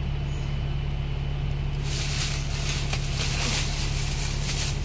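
Double-decker bus engine running with a steady low drone, heard from inside the upper deck. About two seconds in, a fluttering high hiss joins it.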